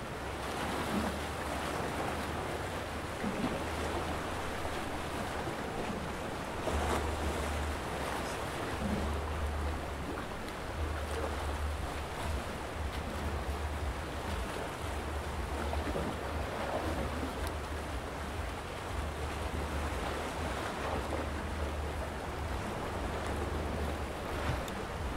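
Calm sea washing against a rocky shore, a steady wash of small waves that swells gently now and then. Low wind rumble on the microphone comes and goes underneath.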